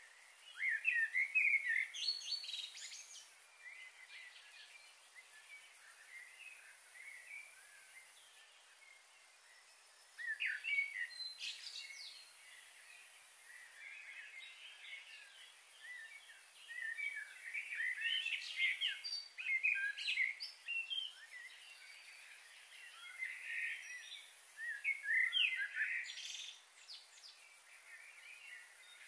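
Small birds chirping in four bursts of quick calls, over a steady high hiss.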